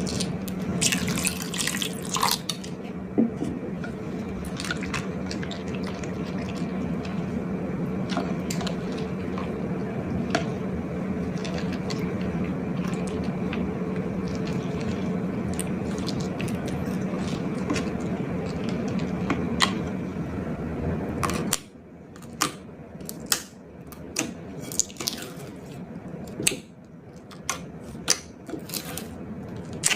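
A steady running noise with a low hum that cuts off suddenly about two-thirds of the way through, followed by sticky slime squishing with scattered clicks and pops.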